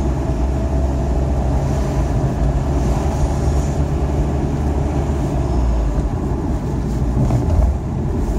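Car driving, heard from inside the cabin: a steady low rumble of engine and road noise, which eases briefly near the end.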